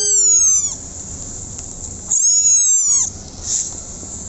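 A kitten mewing twice: high-pitched, slightly falling cries, one right at the start and a longer one about two seconds in.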